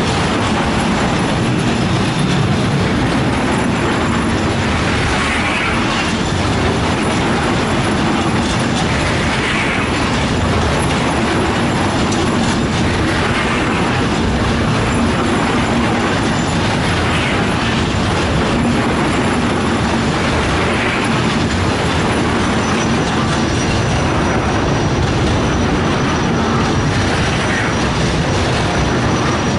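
Container freight train's wagons passing close by: a loud, steady rumble of steel wheels on the rails.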